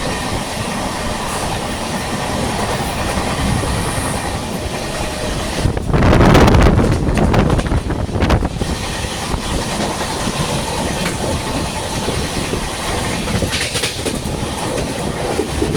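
Express train running at speed, its wheels clicking over the rail joints, with a louder rushing surge about six seconds in that lasts two or three seconds.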